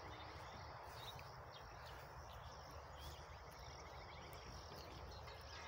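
Quiet open-air background: a low steady noise of wind and field, with faint rapid ticking twice, at the start and about three seconds in.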